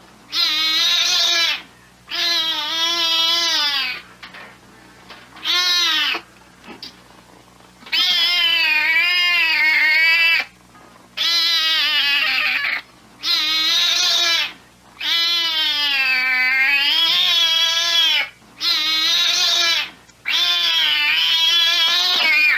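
A cat howling: a series of about ten long, drawn-out yowls with wavering pitch, separated by short pauses.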